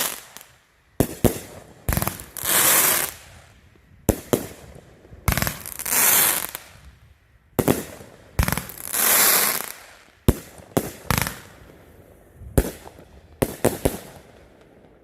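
Fireworks going off: a string of sharp bangs at irregular intervals, three of them followed by a hissing crackle that swells and fades over about a second.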